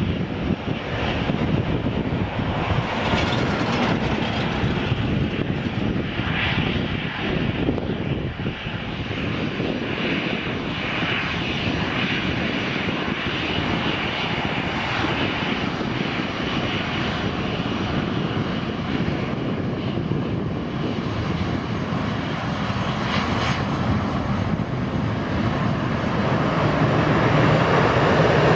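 Boeing 777-300ER's GE90 turbofan engines running steadily as the airliner moves along the runway, getting louder near the end.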